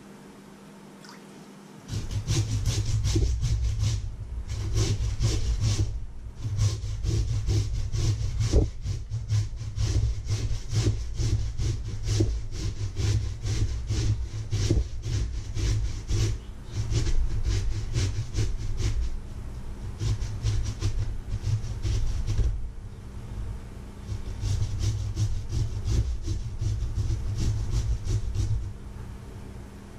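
Boiled potatoes being grated on a flat metal hand grater standing in a stainless steel bowl: quick, repeated rasping strokes with a low knock of the grater against the bowl. It starts about two seconds in, breaks off briefly a few times, and stops near the end.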